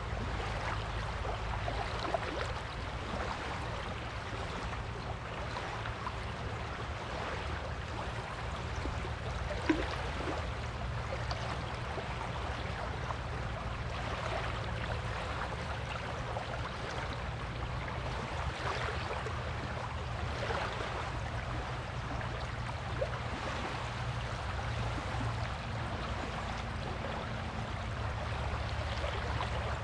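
Gentle sea waves washing on a beach shore: a steady hiss of moving water with soft swells and a constant low rumble underneath. There is one brief sharp click about ten seconds in.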